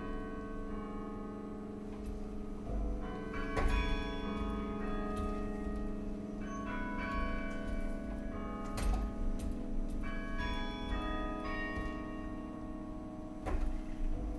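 Bells of Canberra's National Carillon being played: struck bell notes ringing on and overlapping, with a few sharper strikes standing out.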